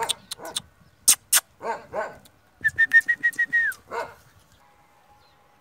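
Dog giving short whines and yelps mixed with sharp clicks, with a quick run of high chirps about three seconds in.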